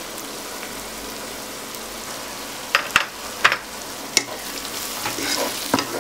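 Sliced onions frying in oil in a wok, a steady sizzling hiss as they soften. From about three seconds in, a wooden spatula knocks and scrapes through them as they are stirred.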